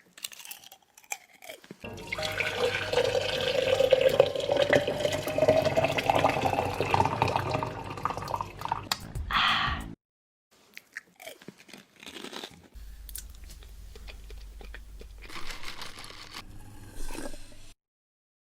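Close-miked crunching and chewing of food, loudest over the first half and then quieter and more scattered.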